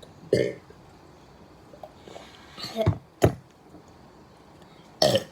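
A person's short burps, about four brief ones spread out with quiet stretches between.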